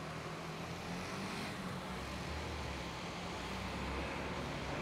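Steady low rumble of motor traffic, swelling a little in the middle as if a vehicle passes.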